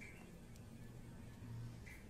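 Quiet pause: faint room tone with a low steady hum.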